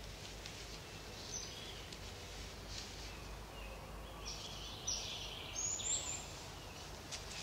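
Quiet woodland ambience: short, thin, high bird calls over a faint low hum, with the rustle of footsteps in dry leaf litter, loudest a little past the middle.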